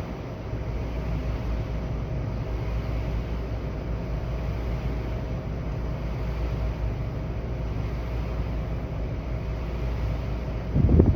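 Steady low rumble of background noise with a faint steady hum, and a brief louder burst of noise near the end.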